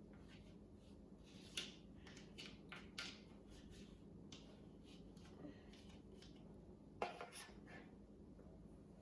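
Faint scraping and tapping of kinetic sand being scooped and packed into a mold, with a few short clicks: one about a second and a half in, a small cluster around three seconds, and a sharper one about seven seconds in.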